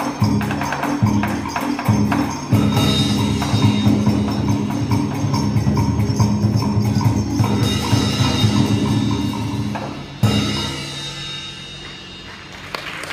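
Live traditional Vietnamese ensemble music for a water puppet show, percussion-heavy with a steady beat; it ends on a final strike about ten seconds in and dies away, and applause starts near the end.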